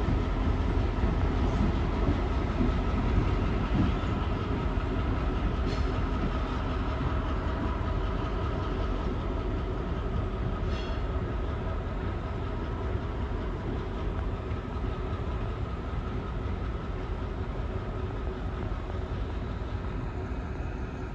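EMD GP38 diesel locomotive running light, its engine droning steadily as it moves away, slowly fading. There are a couple of brief metallic clicks along the way.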